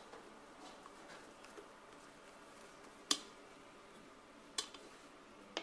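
Three sharp clinks of utensils knocking against a stainless steel mixing bowl while sabayon is poured and scraped into it. The first, about three seconds in, is the loudest and rings briefly.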